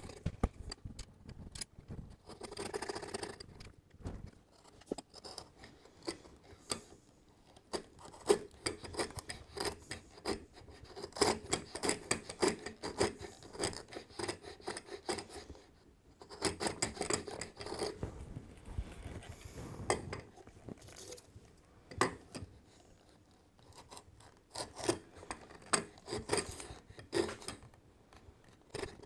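Veritas router plane taking thin shavings from the floor of a half-lap dovetail recess, cleaning it flat to depth: repeated short scraping cuts with small clicks and knocks, in runs broken by brief pauses.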